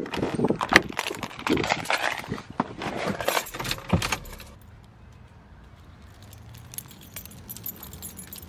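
A bunch of car keys on a key ring jangling and clicking as they are handled and put into a car's ignition, for about four and a half seconds, then quieter.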